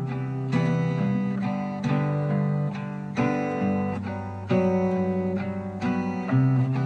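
Intro music led by guitar, with chords struck every second or so.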